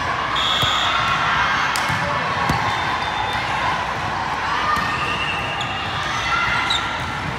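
Indoor volleyball rally: a few sharp hits of the ball on a hard court over a steady murmur of spectators' voices echoing in the gym, with short high squeaks scattered through.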